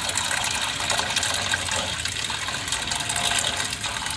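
Oil pouring in a steady gush from the drained oil pan of an International MaxxForce diesel engine into a drain pan. The oil is contaminated with coolant, the sign of coolant leaking into a cylinder.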